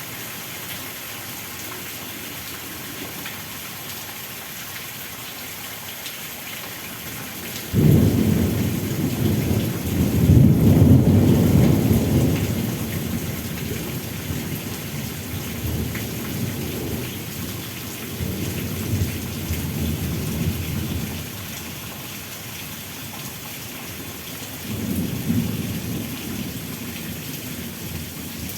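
Steady rain hiss, with a sudden thunderclap about a quarter of the way in that rolls on as a long low rumble, dying down and swelling again near the end.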